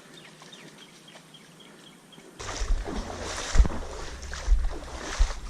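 Shallow creek water sloshing and splashing as someone wades through it, starting suddenly about two and a half seconds in, with low thumps from the steps in the water. Before that, only a quiet hiss of the creek.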